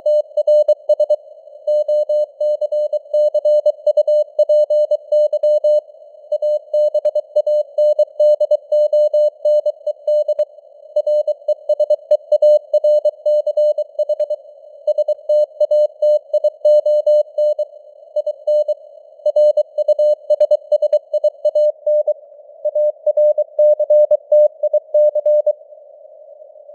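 Morse code sent at 23 words per minute: a single mid-pitched tone keyed on and off in quick dots and dashes, with gaps between words. It sits in a band of simulated radio hiss, and the signal strength rises and falls (QSB).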